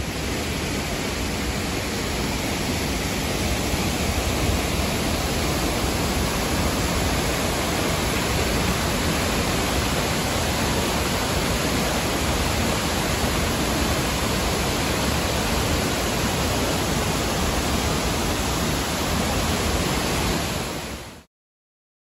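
Waterfall pouring into a plunge pool: a steady, even rush of falling water that stops suddenly near the end.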